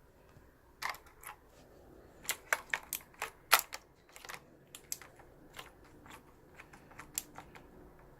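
Computer keyboard keys clacking in an irregular series of sharp clicks, thickest in the middle, as the keyboard is worked over during cleaning with a cleaning jelly.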